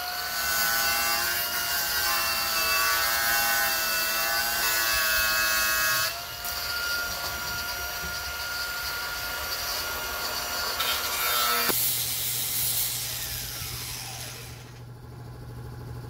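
Handheld power saw cutting the overhanging edge of a new plywood sidewall panel: a motor whine that wavers under load for about six seconds, then runs on more steadily and stops about twelve seconds in.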